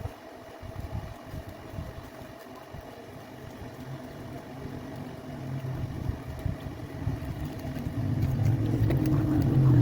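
Low motor rumble with a steady hum, growing louder over the second half.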